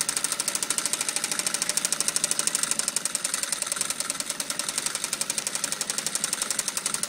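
Industrial direct-drive sewing machine, adapted for quilting, stitching steadily during free-motion quilting: a rapid, even rhythm of needle strokes.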